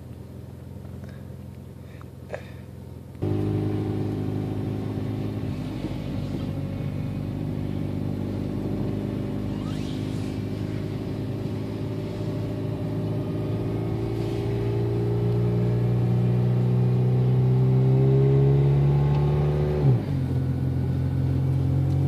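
Car engine heard from inside the cabin while driving: a low hum that gets suddenly louder about three seconds in, then climbs slowly in pitch as the car accelerates, and drops in pitch sharply near the end.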